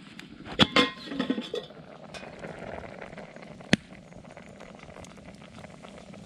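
A few sharp clinks and knocks, mostly in the first second or so and once more near the middle, over a steady rushing hiss.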